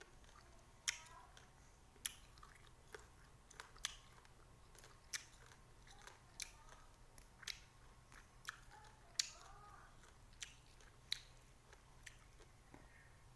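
Chewing small limes: sharp, crunchy clicks, roughly one a second and uneven, over a quiet background.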